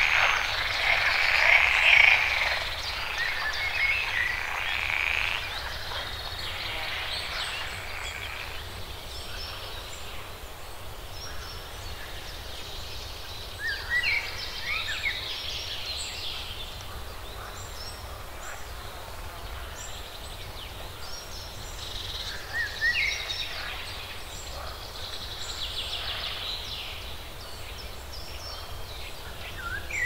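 Evening chorus of many overlapping animal calls, dense and loudest for the first several seconds, then thinning to scattered short chirps and rising call notes.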